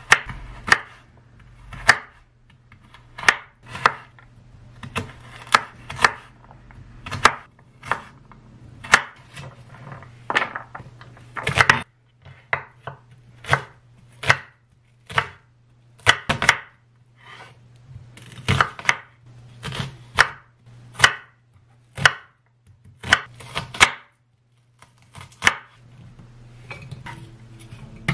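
Chef's knife chopping vegetables on a wooden cutting board, dicing carrot and then onion, with sharp knocks about once or twice a second.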